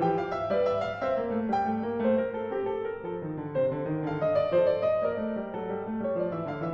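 Steinway & Sons grand piano played solo: classical piano music, a steady stream of separate notes in several voices at once, without pause.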